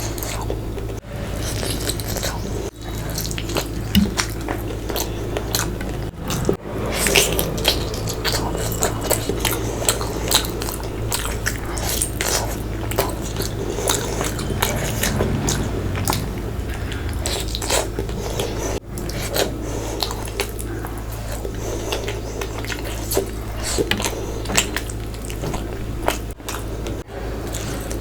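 Close-up eating of fish curry and rice: wet chewing and mouth clicks, many short sticky smacks, over a steady low hum.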